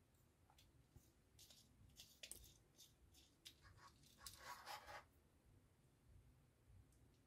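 Near silence with faint handling sounds from wiring a plastic relay socket with a screwdriver: scattered small clicks and scrapes of plastic, tool and wire. The loudest is a short stretch of rustling and scraping a bit past four seconds in.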